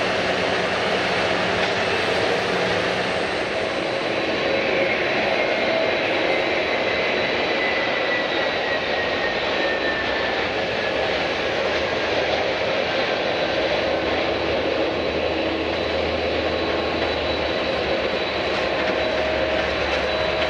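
Jet airliner's engines running with a steady roar, a high whine in it falling slowly in pitch over several seconds.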